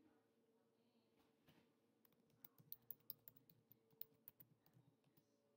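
Faint light clicks and taps, a dozen or so in quick irregular succession from about two seconds in, over a faint steady hum.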